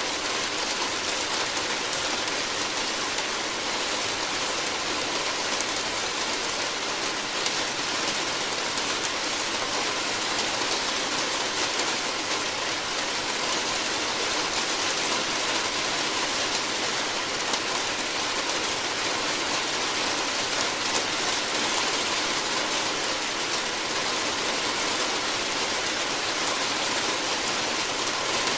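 Steady rain falling on a roof, heard from the room below as an even, unbroken hiss.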